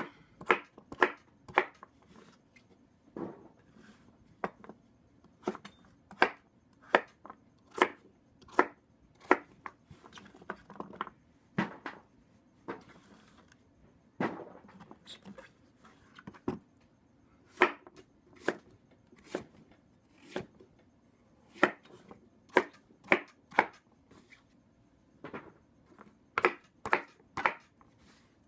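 Chef's knife cubing peeled butternut squash on a wooden cutting board: sharp, irregular knocks of the blade striking the board, about one or two a second.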